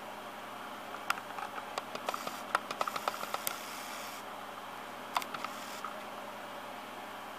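Small clicks and scratches from handling and zooming the camera, a quick run about a second in and a shorter one past the five-second mark, over a steady hiss.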